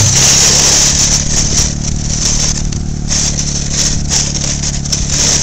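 ATV engine running steadily while towing a snow tube, with bursts of rushing hiss on top, strongest in the first second or so.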